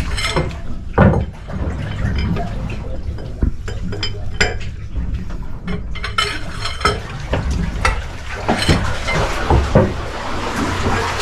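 Repeated metallic clinks and knocks over the steady low rumble of a running boat engine.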